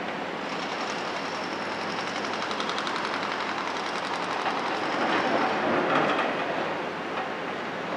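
Excavators working on a demolition site: diesel engines and hydraulics running under a steady rushing noise, with a fast metallic rattle through the middle and a louder swell about five seconds in.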